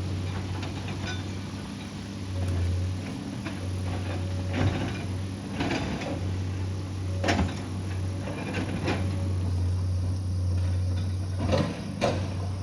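Excavator's diesel engine running with a steady low hum, with intermittent sharp clanks and scrapes, several of them in the second half, from the machine working the ground.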